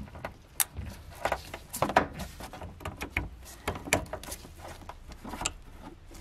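Irregular clicks, taps and rustles of gloved hands pushing fuel hoses and a plastic wiring harness connector onto a car's in-tank fuel pump sending unit plate.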